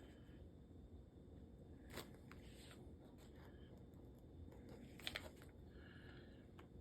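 Mostly near silence, with faint scrapes and small clicks, the clearest about two seconds and five seconds in, of a flat-blade screwdriver mixing JB Weld two-part epoxy on a crinkly plastic dog food bag wrapper.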